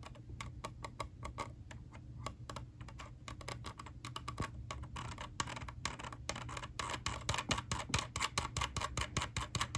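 EVGA X17 gaming mouse scroll wheel being rolled by a fingertip: a run of small ticking clicks from its notched detents, slow and sparse at first, then quick and dense from about halfway. The wheel sounds rough and notchy rather than smooth.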